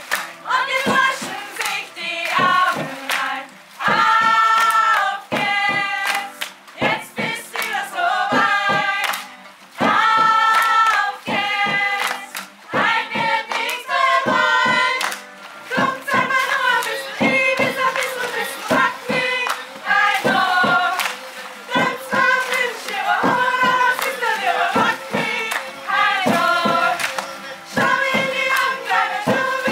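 Youth choir of mostly female voices singing a song together, with an acoustic guitar and short clapping or slapping hits.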